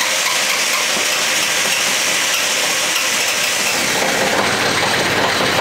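Kioti CS2220 sub-compact tractor's three-cylinder diesel engine turning over and firing on a cold start at −22 °C, a loud, steady noise that starts abruptly just before and holds unchanged.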